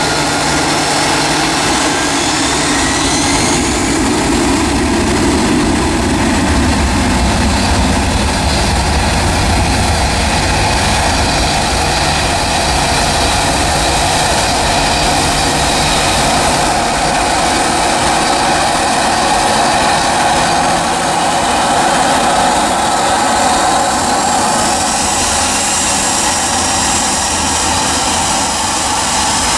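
Jet engines of a Gulf Air Airbus A320-family airliner running on the runway, a steady loud rush with a whine that rises twice, the second time as the engines spool up to takeoff thrust near the end.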